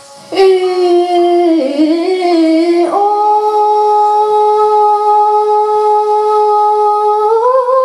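A woman singing hakpare, the traditional Limbu song form, into a microphone. She comes in suddenly with a wavering phrase, then holds one long steady note for about four seconds that lifts slightly near the end.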